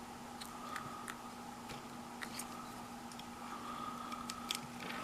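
Faint, irregular snips and clicks of a hand cutting tool trimming the plastic of an electric toothbrush head, about ten over a few seconds, with a steady low hum underneath.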